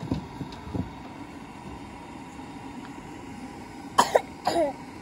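A person coughs sharply about four seconds in, followed by a spoken word. Underneath, a faint steady whistle-like tone comes from the putu bambu cart's steam cooker.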